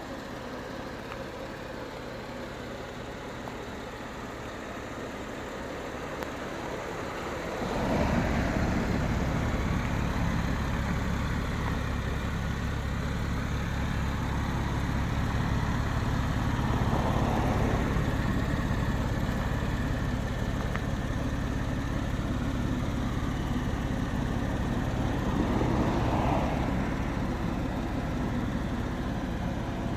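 A motor starts running about eight seconds in and keeps up a steady hum, swelling every nine seconds or so.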